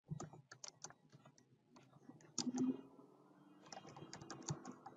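Typing on a computer keyboard: faint, scattered key clicks, with a brief, louder low sound about two and a half seconds in.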